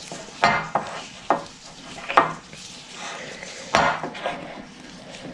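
A utensil scraping and knocking against a bowl while stirring cornstarch into sticky melted gummy bears, in about six irregular strokes.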